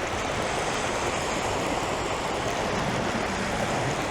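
Sea surf washing steadily onto the beach, a continuous even rush of water.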